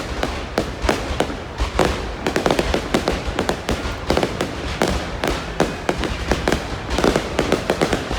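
Fireworks display going off: a dense, irregular crackle of sharp bangs, several a second, over a steady low rumble.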